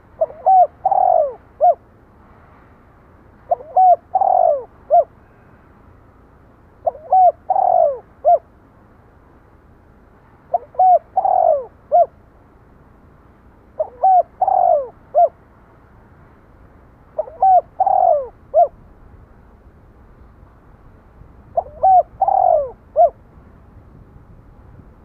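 Spotted dove cooing, a repeated phrase about every three and a half seconds, seven times. Each phrase is a few short coos around one louder, downward-sliding coo and a short final note.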